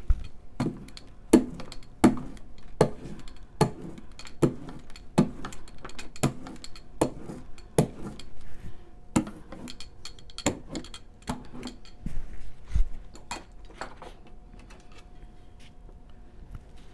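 A steady series of light knocks, about one every three-quarters of a second, ending about 14 seconds in: a hand tool being tapped repeatedly against paper on a work table. A faint steady hum comes in about halfway through.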